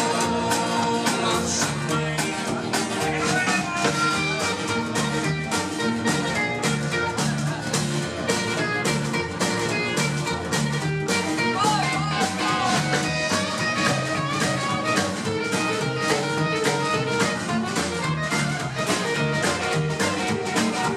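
Live band playing guitar over bass and drums with a steady beat.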